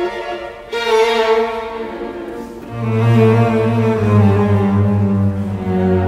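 Background music on bowed strings, slow held notes, with a low note coming in about halfway through and held.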